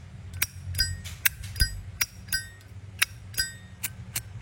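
Zippo lighter lid flicked open and snapped shut again and again, several sharp metallic clicks a second, many with a short bell-like ring. The lighter has been adjusted for this ringing tone, and its lid needs a firm flick.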